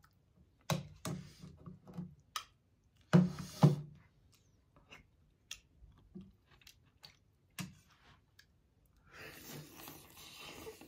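A person eating chicken and potato soup: a metal spoon clicking and scraping in a plastic bowl, with chewing, and the loudest clatter a little after three seconds in. Near the end comes a noisier stretch of sipping broth from the spoon.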